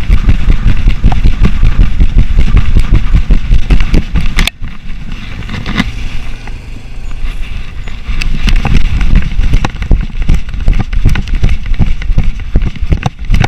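Heavy wind buffeting and knocking on a GoPro strapped to a running golden retriever's harness, the camera jolted with each stride. It eases off for a few seconds around the middle, then comes back loud.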